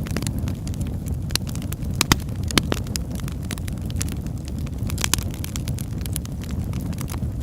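Wood fire crackling over a steady low rumble. Irregular sharp pops, the loudest a little after two seconds in and again around five seconds.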